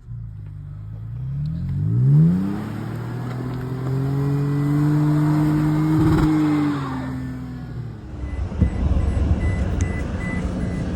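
Vehicle engine revving: its pitch climbs quickly to a peak a couple of seconds in, holds at a steady high rev for several seconds, then drops away. After that comes a rougher, noisier low rumble with scattered knocks.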